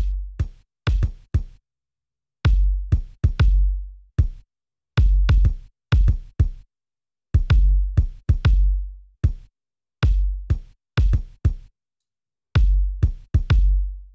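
Kick drum track playing alone through a Pultec EQP-1A program equalizer plugin, whose low-frequency boost gives it a deep low end. Its repeating pattern of several hits, each with a long decaying low boom, comes around about every two and a half seconds.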